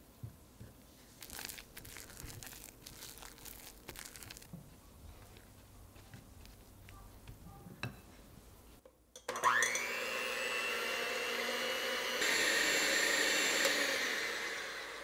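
A silicone spatula scrapes and stirs flour into egg in a glass bowl, with small clicks against the glass. About nine seconds in, an electric hand mixer whirs up to speed beating egg whites in a glass bowl. It steps up louder about three seconds later and fades out near the end.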